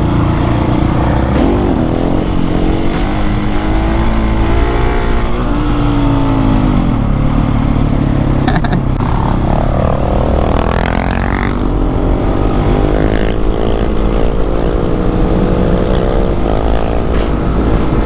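Husqvarna 701 Supermoto's single-cylinder engine under way, its pitch rising and falling as it accelerates and eases off, with a sharp rev about ten seconds in, over a steady low wind rumble.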